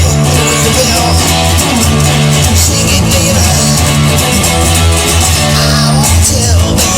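Music: guitars playing over a bass line, with no singing in this passage.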